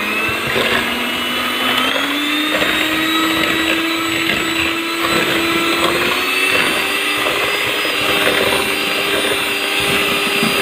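Philips electric hand mixer running at high speed, its twin wire beaters whisking eggs and sugar in a glass bowl. The motor whine is steady, its pitch creeping up a little twice as the mixture foams up.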